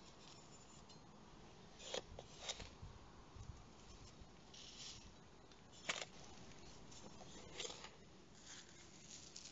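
Faint scraping and rustling of granular cat litter: a plastic scoop digging into litter in a plastic tray and litter sprinkling onto soil, with a few sharp clicks of the scoop.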